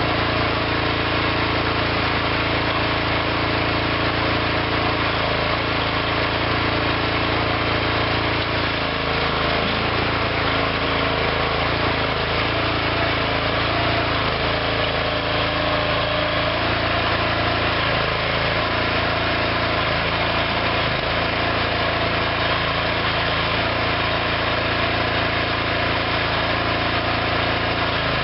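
Small engine of a homemade hydraulic backhoe running steadily, its note shifting slightly now and then.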